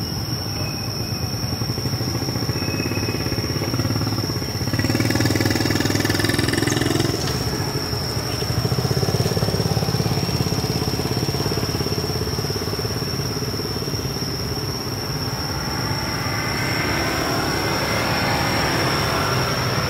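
Motor vehicle engines passing: a steady low rumble that swells about five seconds in and again, rising in pitch, near the end, with a constant thin high-pitched tone over it.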